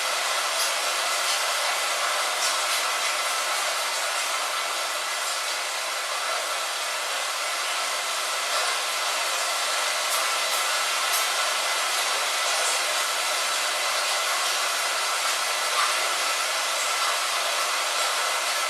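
Light rain falling steadily on a window: an even hiss with scattered faint ticks of single drops.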